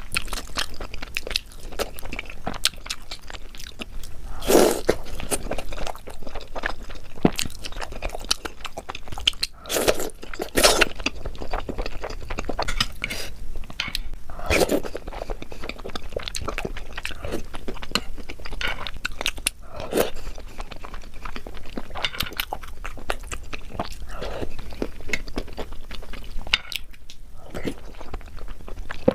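Close-miked chewing of Indian sweets: a steady run of small crunches and wet chewing, with a few louder crunching bites standing out.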